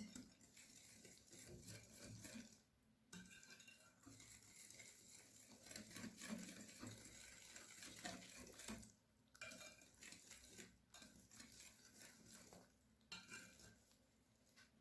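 Faint, steady clinking and scraping of a hand whisk stirring cake batter in a bowl, with a few short pauses.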